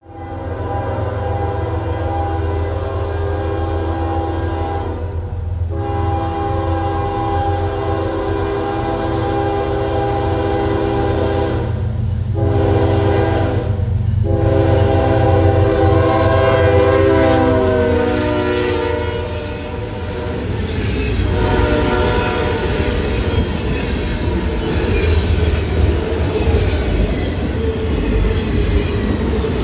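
Norfolk Southern diesel locomotive sounding its air horn in two long blasts, a short one and a final long one, the pattern of the grade-crossing signal; the horn's pitch drops as the locomotive passes. Then the engine drones and the freight cars' wheels clatter over the rail joints as the train rolls by.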